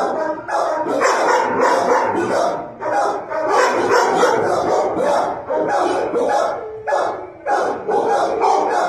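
Several shelter dogs barking over one another, rapid overlapping barks with hardly a pause.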